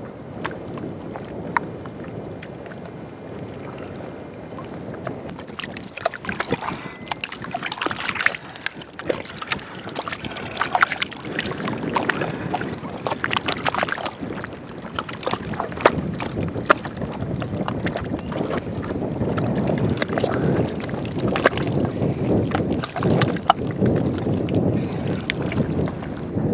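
Wet tidal-flat mud squelching and sloshing as a person works through it on hands and knees, with many small sharp pops and clicks over a steady rush of wind on the microphone. It grows louder about halfway through.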